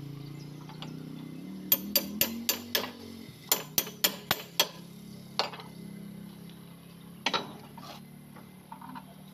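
Sharp metal-on-metal clinks from steel tools and parts on the backhoe loader's bucket and loader arm: five in quick succession, then five more, then two single ones. Under them a steady low engine hum runs throughout.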